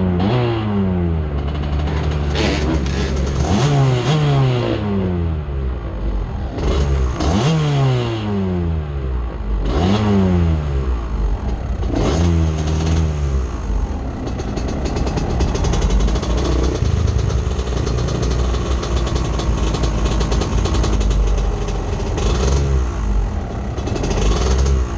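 ATV engine being ridden, the throttle opened and closed again and again so its pitch rises and falls in quick sweeps. From about halfway it runs steadier, with rattling and clatter over the engine.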